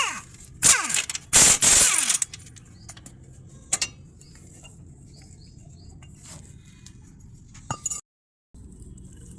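Metal parts scraping and clattering as they are handled, loudest in two bursts about a second in, followed by scattered light clicks and knocks.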